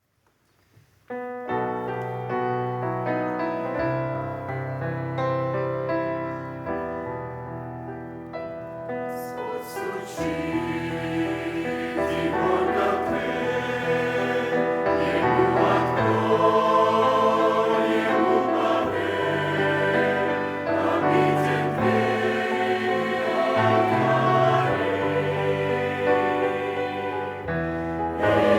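Church choir singing a Russian hymn with accompaniment. About a second in, held instrumental chords over a stepping bass begin, and the choir comes in about nine to ten seconds in.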